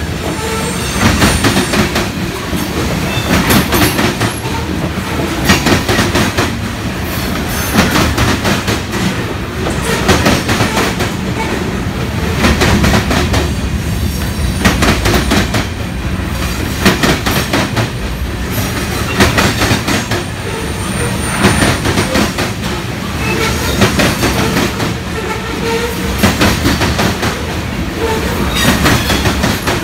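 Freight train of covered hopper cars rolling past close by: steel wheels clack over the rail joints in repeating groups every second or two over a steady rumble, with a brief faint high wheel squeal partway through.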